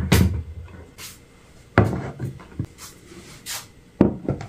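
A portable gas stove set down on a wooden tabletop with a knock and a short scrape, then more knocks and rubs as dishes are put down on the table, about two seconds in and again near the end.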